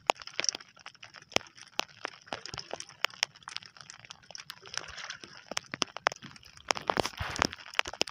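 Irregular sharp ticks and taps, several a second, over a steady hiss of wind and water around a small outrigger fishing boat at sea.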